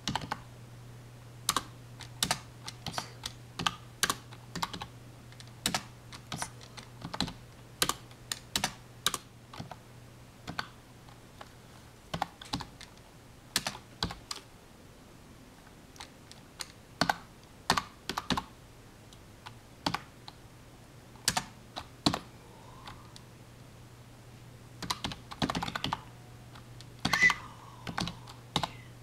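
Typing on a computer keyboard: irregular runs of keystrokes with short pauses between them, over a low steady hum.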